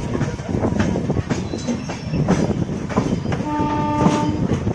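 Passenger train coaches rumbling and clattering past on the next track at close range, with sharp clicks from the wheels over rail joints. About three and a half seconds in, a train horn sounds one steady note for about a second.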